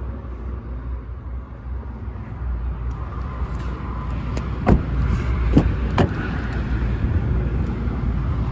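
Steady low rumble of handling and outdoor noise, with three sharp knocks about five to six seconds in, as a pickup's open rear door and its interior are handled.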